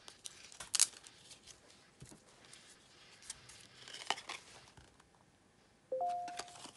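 Clear plastic card sleeves crinkling and rustling as a stack of sleeved photocards is handled and pulled apart. There are sharp crackles, the loudest about a second in. Near the end comes a brief steady two-note hum.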